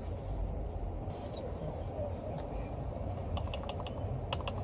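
Steady low hum of a bench-tested PC running with its fans spinning, and a few quick keyboard key clicks in two short clusters near the end.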